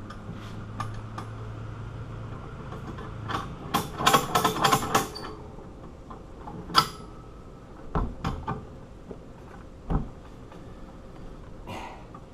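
Clinks and knocks of metal being handled, a padlock and tools. A quick run of sharp clicks comes a few seconds in, then one loud click and a few single knocks.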